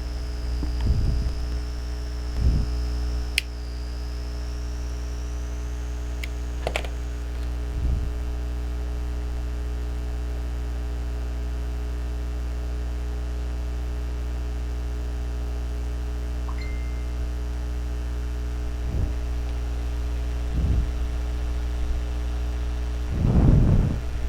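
Steady low electrical hum with a few light clicks and taps of small parts being handled, and a faint high whine over roughly the first seven seconds.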